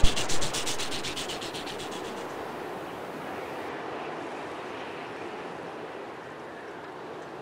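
A sharp click and a thump at the start while a fast rasping pulse, about ten strokes a second, fades away over the first two seconds; then a steady wash of sea surf.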